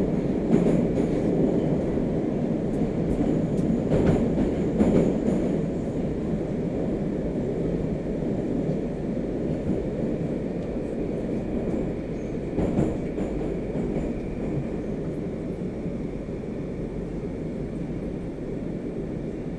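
Moscow Metro 'Moskva' (81-765) train running at speed, heard from inside the carriage: a steady rumble of wheels and running gear with a few sharp knocks from the wheels over rail joints, easing slightly in loudness toward the end.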